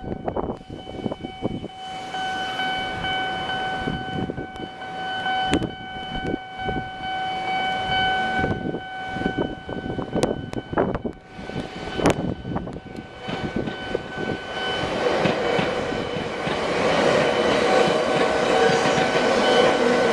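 Japanese level crossing warning signal ringing with a steady pitched tone while a Toyohashi Railway Atsumi Line train approaches. In the last few seconds the train's running noise builds, with wheels clattering over the rail joints.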